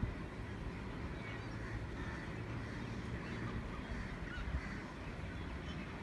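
A large flock of waterbirds calling from a distance, a faint chatter of many small honking calls, over a steady low rumble of wind on the microphone.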